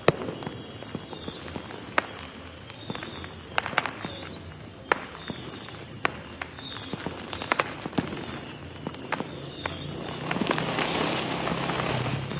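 Fireworks going off: irregular sharp bangs at varying distances, with short faint high tones now and then. A denser crackling builds from about ten seconds in.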